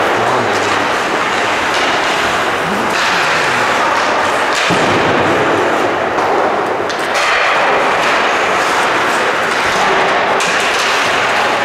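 Ice hockey being played on a rink: a steady hiss of skates on the ice, with a few sharp knocks from sticks, puck or boards.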